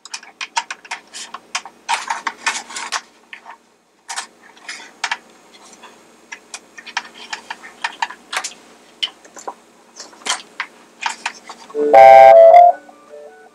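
A run of small clicks and knocks as the opened carousel base is handled, then about twelve seconds in the Mr. Christmas carousel's electronic tune starts playing loudly through its small speaker, a few held notes at a time.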